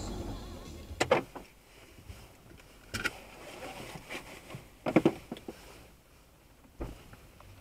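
Inside a stopped car's cabin, a low engine rumble dies away in the first second or so. Then come a few sharp knocks and clicks, about two seconds apart, with a double knock about five seconds in.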